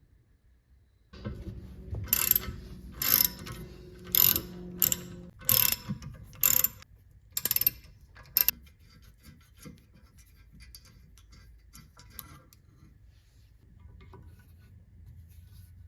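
Mechanical ratcheting and clicking: about eight sharp strokes roughly once a second, over a steady motor hum that stops about five seconds in, followed by fainter scattered clicks.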